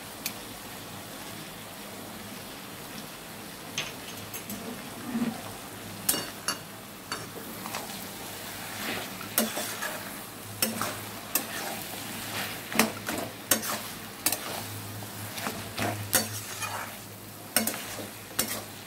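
Flat metal spatula stirring and scraping cabbage curry around a metal wok while it sizzles on the heat. There is a steady frying hiss throughout, and from about six seconds in, frequent irregular clicks and scrapes of the spatula against the pan.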